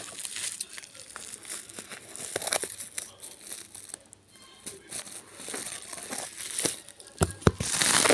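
Plastic packaging crinkling and rustling as a parcel is opened and handled, with scattered small clicks. The crinkling grows louder and denser near the end as a plastic bag is handled.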